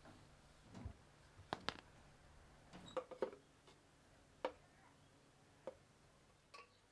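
A handful of light, scattered clinks and taps of a spoon against a stainless-steel mixer-grinder jar while ground paste is scraped out of it.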